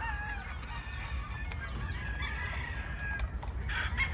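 Chickens calling: a wavering rooster crow at the start and clucking through the middle, then a burst of high chick peeping near the end. A low rumble runs underneath.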